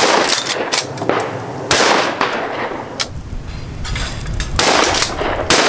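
Shotgun shots fired at clay targets: several sharp, loud reports a second or more apart, each trailing off in an echo.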